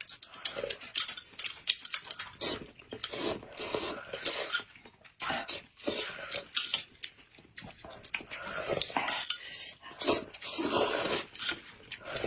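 Close-up eating sounds: noodles being slurped and a spoon sipping thick corn porridge from a glass cup, irregular slurps and sips with small clinks of the spoon.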